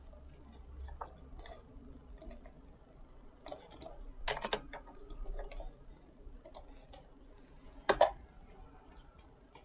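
Scattered computer mouse clicks, a few bunched around the middle and a louder pair near the end.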